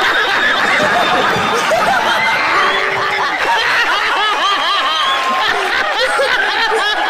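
Many people laughing loudly at once, a dense, continuous mass of overlapping hearty laughs.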